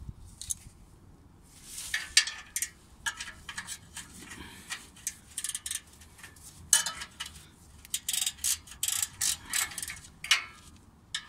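Ratcheting wrench clicking in irregular runs of rapid clicks, with steel wrenches clinking on the exhaust flange bolt, as the bolts joining the catalytic converter to the exhaust pipe are loosened.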